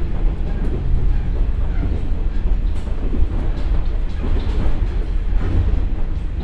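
Interior running noise of a JR West KiHa 47 diesel railcar with a Komatsu engine and KTF3335A transmission, travelling at about 74 km/h: a steady, loud low rumble of engine and wheels on rail, with a few faint clicks.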